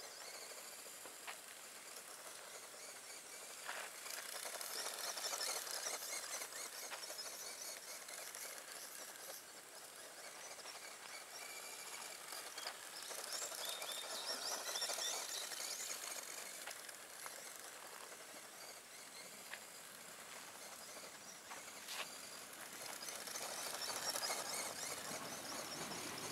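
Tamiya Grasshopper RC buggy driving on gravel: the whine of its electric motor and gears, with the tyres on the grit, growing louder and fading several times as it passes.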